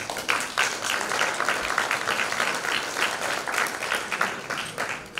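Audience applauding: many hands clapping steadily, welcoming a speaker to the podium.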